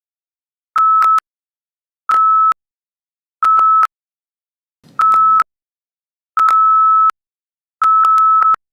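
Hearing-test tones: a single steady pure tone beeping six times, each beep about half a second long and the last slightly longer, at an even pace of roughly one every second and a half.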